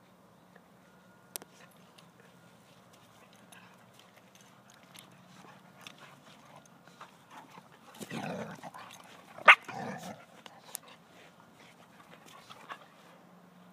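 Two dogs wrestling: soft scuffling and scattered ticks from paws and collars, then about eight seconds in a burst of growling that peaks in one sharp yelp, the loudest sound, before settling back to quiet scuffling.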